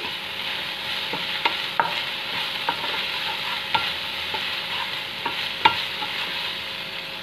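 Chopped vegetables sizzling in a non-stick frying pan while a spatula stirs them together with sauces and spices. There are scattered clicks and taps as the spatula knocks against the pan.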